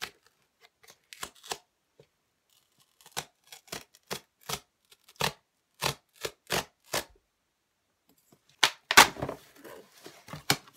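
A pen tip scraping and slicing through the packing tape on a cardboard shipping box, in a dozen or so short strokes. Near the end comes a louder stretch of cardboard rustling and tearing as the box is pulled open.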